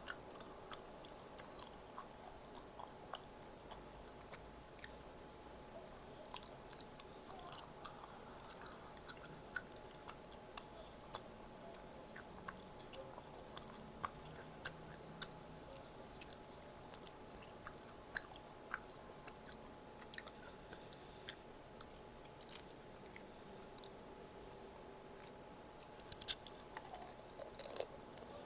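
Close-miked chewing and mouth sounds of a person eating, with short sharp clicks scattered throughout and a louder cluster of crunchy bites near the end.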